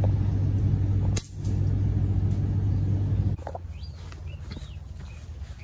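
A steady low mechanical hum, like a motor running, that breaks off abruptly a little over three seconds in. After it come a few short bird chirps and light ticks.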